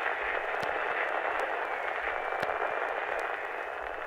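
Old-radio static: a steady, narrow-band hiss with scattered clicks and a faint whistle, slowly fading.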